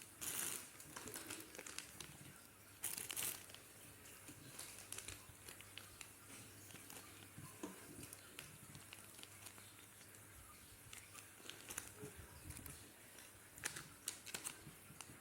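Plastic grocery bags crinkling and rustling as they are handled, in a few short bursts with small clicks and taps between.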